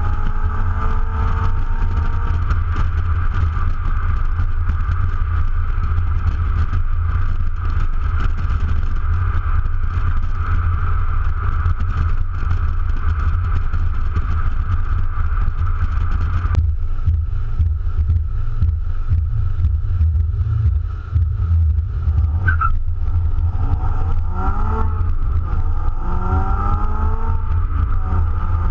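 Nissan 370Z's 3.7-litre V6 running through its stock exhaust while driving, under a heavy low rumble of wind and road noise on an exterior-mounted camera. Near the end the exhaust note rises in several climbs as the car accelerates.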